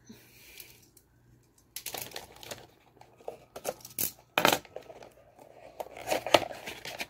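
Small cardboard tea box being opened and handled, with paper tea packets drawn out: a run of crinkles, taps and scrapes with a couple of sharper clicks in the second half.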